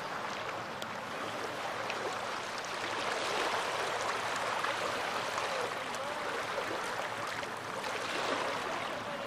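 Small waves of the Baltic Sea washing on the shore: a steady hiss of water that swells about three seconds in and again near the end.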